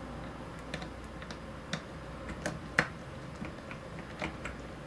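Small, irregular clicks and ticks of a screwdriver working screws out of a Canon Rebel T6 DSLR's plastic body. The loudest click comes a little past the middle.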